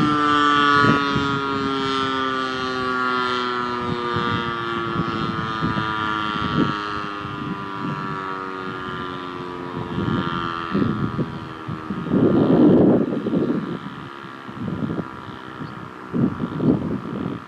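ASC T-112 rotating warning siren winding down at the end of its test, its tone sliding slowly lower and fading. Gusts of wind rumble on the microphone in the second half, loudest about twelve seconds in.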